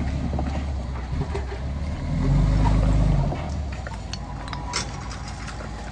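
Heavy diesel machine engine running, working harder and louder for about a second a little over two seconds in, with a few short sharp knocks later on.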